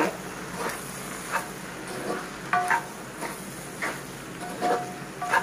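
Wooden spatula stirring and turning spiced potatoes and onions in a frying pan, with irregular scrapes and taps against the pan over a faint frying sizzle.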